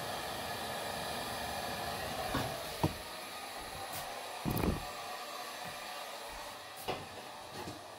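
Heat gun blowing hot air steadily to melt frost in a refrigerator freezer, with a few light knocks about a third of the way in, around the middle and near the end.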